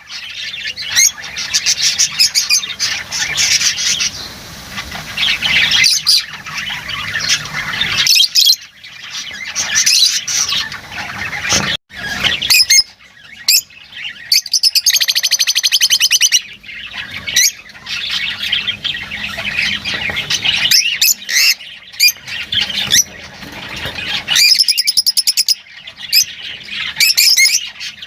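Lovebirds chattering with a dense run of shrill squawks and rapid chirps, with several abrupt breaks.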